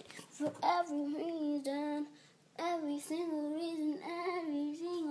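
A child singing, holding long wavering notes without clear words, with a short pause about two seconds in.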